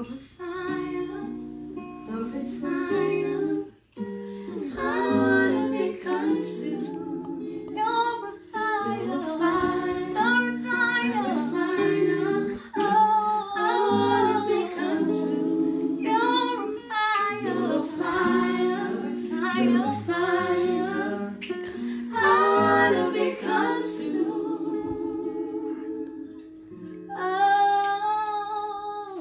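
A woman singing a worship song live to acoustic guitar accompaniment, holding a long note near the end.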